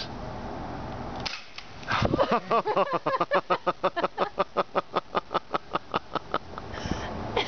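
A single shot from an air pistol firing a BB about a second in, followed by a rapid run of short pitched calls, about four or five a second, that stops a second before the end.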